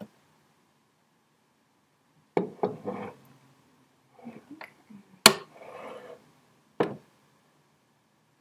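A tall ceramic mug and a heavy cast-iron teapot set down on a wooden tabletop: a quick cluster of knocks about two and a half seconds in, a few lighter ones, then the loudest, sharpest knock a little past halfway, followed by a short rattle and one more knock near the end.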